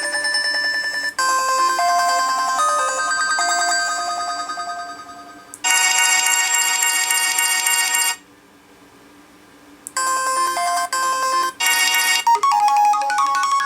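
HTC Desire 610 stock ringtones previewed one after another from the phone's speaker, each cut off abruptly when the next is selected. A chiming melody fades out, a louder, denser buzzing ring starts about five and a half seconds in and stops after about two and a half seconds, and after a short quiet gap several more short melodies follow.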